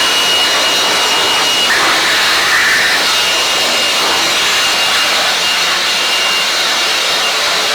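Steady, loud rushing hiss of a high-pressure cleaning jet working on air conditioner parts during a disassembly cleaning, with a faint high steady whine.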